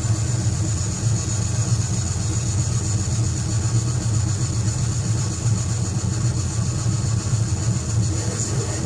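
Harsh industrial noise music playing from a vinyl record: a steady, unbroken wall of heavily distorted noise with a strong low rumble, without beats or voice.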